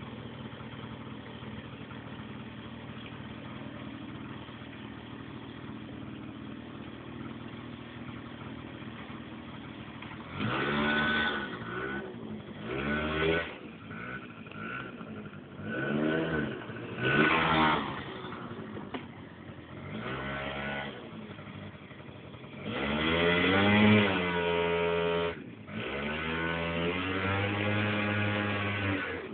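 Keeway Matrix scooter engine idling steadily, then revved again and again from about ten seconds in, each burst rising in pitch and dropping back. The longest and loudest rev comes a little after twenty seconds.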